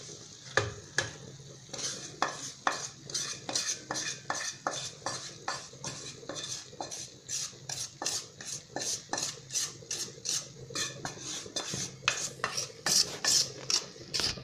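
Spatula scraping fried semolina (suji) out of a tipped non-stick kadai into another pan, in repeated short strokes about two to three a second.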